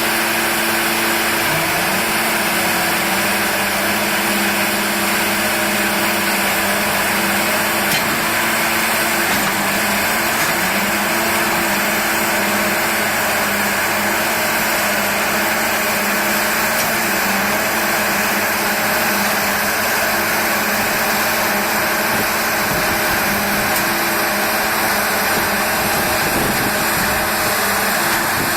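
Engine on a continuous welded rail train running steadily, one of its tones stepping down in pitch about a second and a half in.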